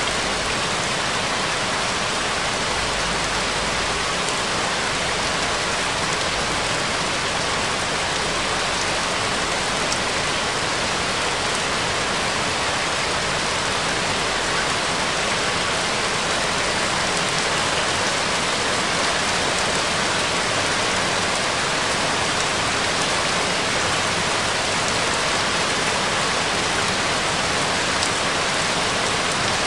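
Steady rain, an even unbroken hiss that keeps the same level throughout, with no music or voice heard over it.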